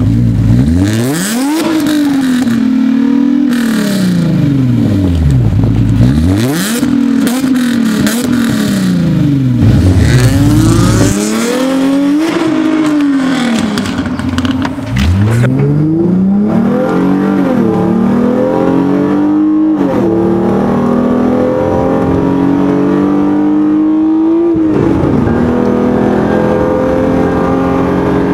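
2013 Hyundai Genesis Coupe's engine and exhaust revved repeatedly, the pitch climbing and falling with each blip. About halfway through it is heard from inside the cabin accelerating hard, the engine note rising steadily and dropping back at each of two upshifts.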